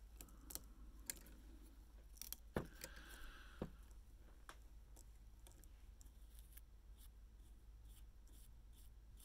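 Faint scattered clicks and light handling noises from small tools and fingers working at a fly-tying vise, a few sharper clicks in the first four seconds and a short soft hiss about three seconds in.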